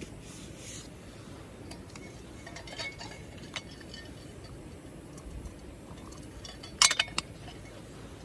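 Tableware clinking: scattered light clinks with a brief ring, then a quick cluster of sharper, louder clinks about seven seconds in.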